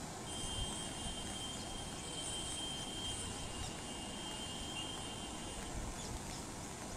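Steady roar of fast-flowing floodwater, with a steady high-pitched tone held for about five seconds over it.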